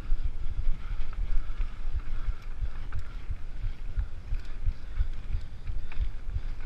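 Mountain bike rolling fast down a dirt singletrack: an uneven low rumble and thumping from the tyres and bike jolting over the trail, with a light hiss of tyres on dirt, a few small rattles and some wind on the microphone.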